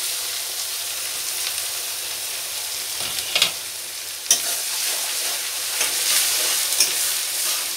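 Sliced onions sizzling steadily in hot oil in a steel kadhai, a freshly added batch frying hard. A metal spatula stirring in the pan gives a few sharp clicks and scrapes against the steel.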